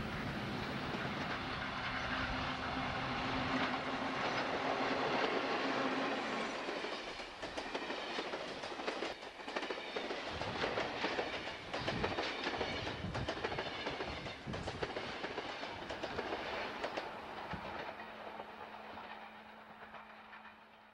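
FEPASA V8 electric locomotive passing with a steady hum, followed by a passenger train's coaches rolling by, their wheels clicking rapidly over the rail joints. The train sound fades away over the last few seconds.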